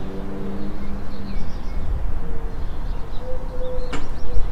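Small birds chirping faintly over a steady low rumble, as the last held notes of a music track fade out. About four seconds in there is a single sharp click as a ceramic cup is set down.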